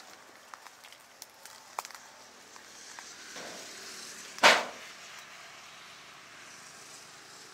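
A hand-forged cleaver chopping through a plastic water bottle in a sharpness test: one sharp, loud crack about four and a half seconds in, after a few light ticks and taps.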